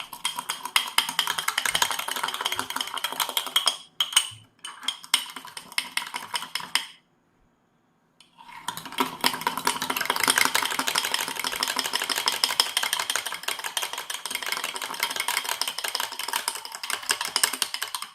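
Rapid stirring in a glass cup, a utensil clinking fast and continuously against the glass as beaten coffee is mixed with milk. It stops for about a second near the middle, then starts again.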